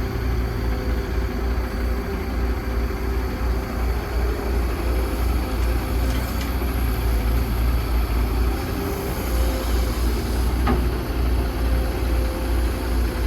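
Excavator's heavy diesel engine running steadily with a low rumble and a faint steady whine over it.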